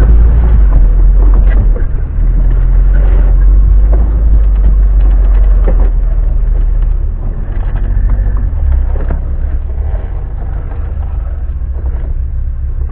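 Off-road vehicle's engine running at low revs while it crawls over rough ground, with scattered knocks and rattles from the bumps.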